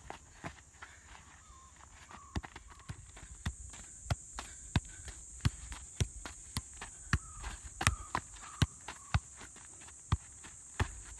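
A leather football being kicked and juggled on a dirt ground: sharp taps and thuds of foot on ball, irregular, roughly one every half second. A steady high hiss and a few faint chirps run behind them.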